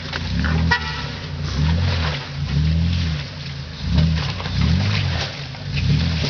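Toyota 4Runner's engine being revved up and down in repeated surges, about once a second, as the truck crawls up a rocky, muddy trail. A brief high-pitched chirp sounds about a second in.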